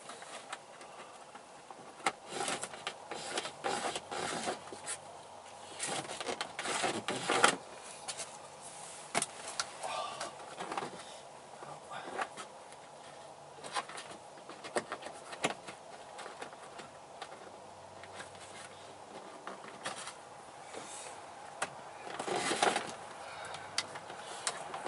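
Hands tucking a wire into the edge of a car's headliner and plastic trim: irregular rustling, scraping and sharp clicks, busiest in the first third and again near the end.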